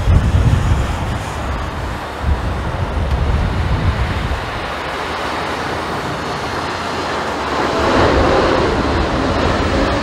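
Boeing 747-8 freighter's four GEnx turbofans running as it passes low overhead on landing approach, the jet noise swelling near the end. Strong gusty crosswind buffets the microphone with a low rumble.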